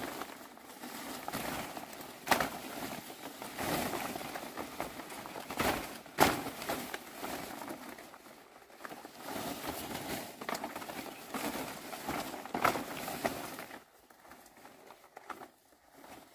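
Rustling of large dong leaves and undergrowth as they are picked and handled, with a few sharp snaps. The rustling dies away about three-quarters of the way through.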